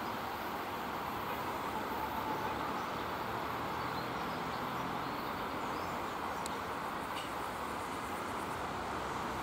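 VL8M electric locomotive hauling a freight train at slow speed: a steady running noise with a low hum underneath.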